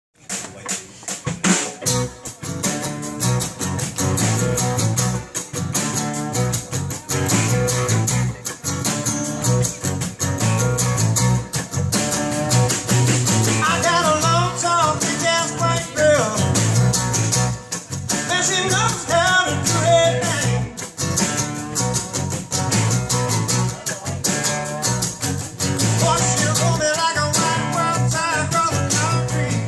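A rock band playing: electric and acoustic guitars over a drum kit, with a man singing lead vocals from about 13 seconds in.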